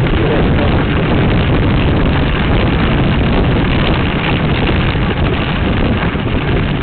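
Loud, steady wind buffeting on the microphone of an action camera mounted on a moving bicycle, mixed with the rumble of the tyres rolling on the road.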